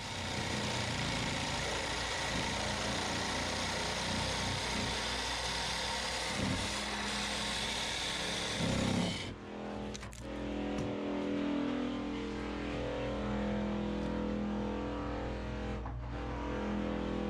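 Hacksaw cutting through PVC drain pipe: steady sawing for about nine seconds that stops suddenly, followed by background guitar music.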